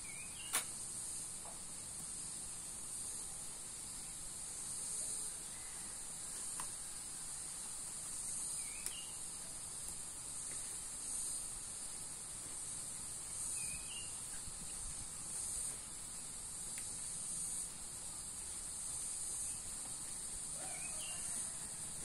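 Steady high-pitched insect chorus, slightly pulsing, with a few short chirps scattered through it and one sharp click about half a second in.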